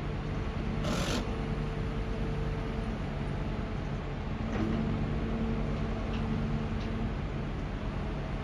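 A steady low mechanical hum, like an engine or motor running, over a continuous rushing noise, with a short hiss about a second in.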